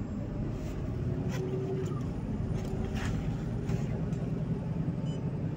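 MAZ city bus under way, heard from inside the passenger cabin: a steady low engine drone, with a few short clicks and knocks from the body and door fittings.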